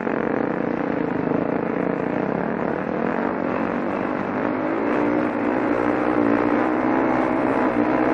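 Yamaha WR450F dirt bike's single-cylinder four-stroke engine running under load up a steep dirt hill climb. The engine note holds steady, then rises a little about five seconds in.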